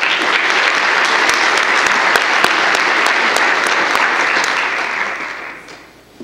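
Audience applauding, even and sustained, dying away near the end.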